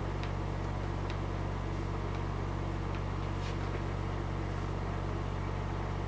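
Steady low hum with a few faint, light clicks of small brass lock pins and the lock plug being handled on a rubber mat.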